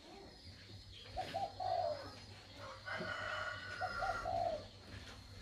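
A pigeon cooing twice, each phrase a couple of short notes running into a longer drawn note, about two and a half seconds apart.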